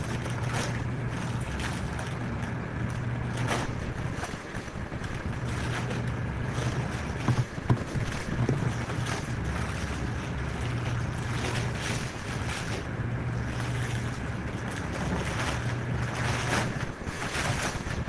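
Anti-static plastic bag crinkling and rustling as it is opened and pulled off a blade server, over a low hum and steady air noise, with a brief knock about seven seconds in.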